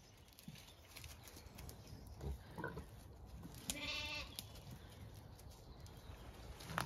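A Zwartbles sheep bleats once, a short wavering bleat about four seconds in.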